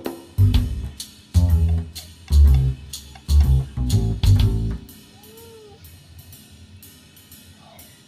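Background music with drums, bass and guitar. There are heavy bass beats through roughly the first five seconds, then a lighter stretch with only ticking percussion.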